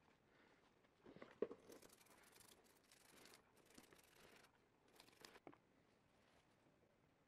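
Faint scratchy scrubbing of small steel can-opener parts by hand, with a scouring sponge and a toothbrush worked over the metal. A few light clicks of the metal parts come about a second in and again around five seconds.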